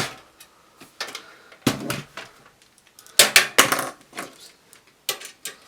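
Screwdriver work on a small PC case: irregular hard clicks, knocks and clatters as screws are undone and the case panel is handled, with a dense run of clatters a little past halfway.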